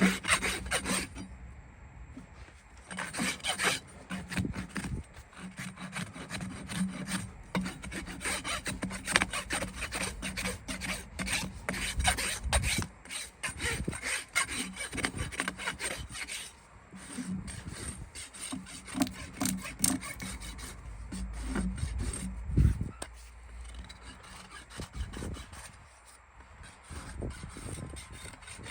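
Farrier's hand tools scraping and cutting hoof horn in quick, irregular strokes, as a horse's hoof is trimmed and rasped.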